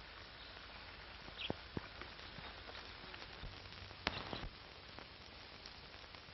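Quiet, steady hiss of an old film soundtrack, with a few soft clicks about a second and a half in, again just after, and about four seconds in.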